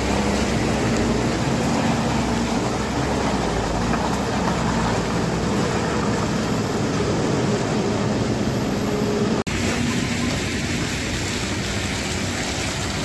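A vehicle engine running steadily under a constant noisy rush of road noise. The sound drops out for an instant about nine and a half seconds in, then carries on the same.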